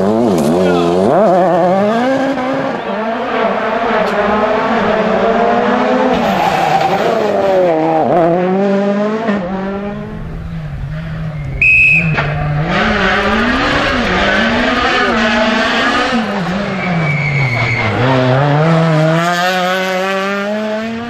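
Rally car engine revving hard, its pitch climbing and dropping again and again through gear changes and lifts. About twelve seconds in there is a short, loud high-pitched squeal.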